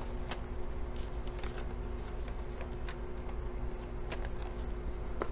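Paper rustling with scattered light taps as dollar bills and a paper cash envelope are handled, over a steady low hum.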